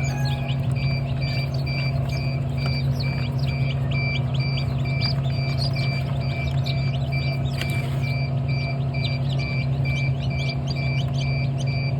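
Small birds chirping over a steady low hum and a regular electronic beep, about three beeps every two seconds.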